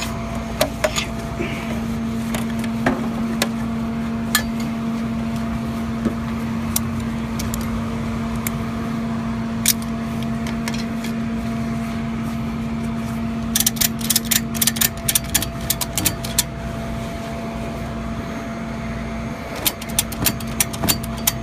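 A vehicle engine idling with a steady hum. Two runs of rapid sharp clicks come about two-thirds of the way through and again near the end.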